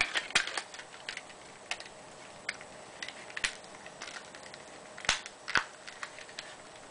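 Sharp plastic clicks of Lego bricks being pressed one by one into the magazine of a Lego brick-shooter rifle, as it is loaded with eleven brick rounds. The clicks are single and fall at uneven intervals, with a pair about five seconds in.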